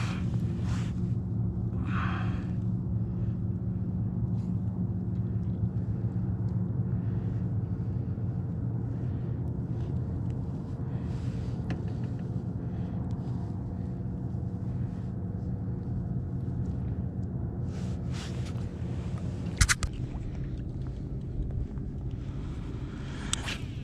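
Small boat outboard motor idling steadily, a low even drone, with a sharp click about twenty seconds in.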